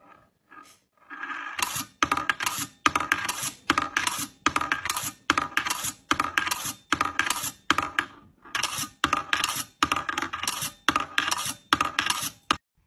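Small steel ball of a kinetic desk toy clattering round its bowl and rails. It goes in a quick repeating cycle of metallic rattling bursts, a little more than one a second, after a few faint ticks at the start, and stops abruptly near the end.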